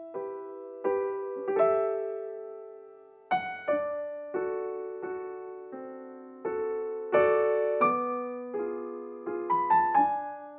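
Background piano music: gentle single notes and chords, each struck and left to fade.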